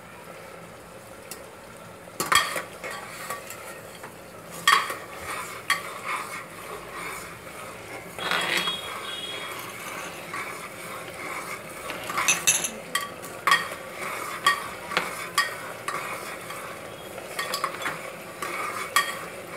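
Yogurt and turmeric paste sizzling steadily as it fries in hot mustard oil in a pressure cooker, at the stage where it is cooked until the raw turmeric smell goes. A spatula stirs it, scraping and knocking against the pot at irregular moments.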